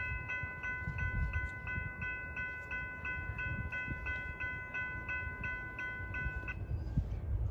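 Railroad grade crossing warning bell ringing at about three strikes a second over a low rumble. The bell stops about six and a half seconds in.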